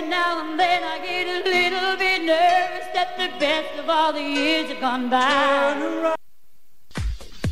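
Music with singing voices holding wavering, vibrato notes. It cuts off about six seconds in, and after a short gap a dance track with a steady kick-drum beat, about two beats a second, starts near the end.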